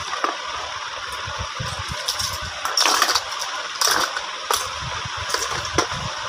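Small jewellery pieces and their box clinking and rattling as they are handled, in a few short clatters, loudest about three seconds in, over a steady background hiss.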